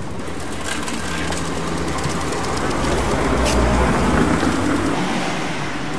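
A motor vehicle passing along the street: its noise swells to a peak a little past the middle and fades away again.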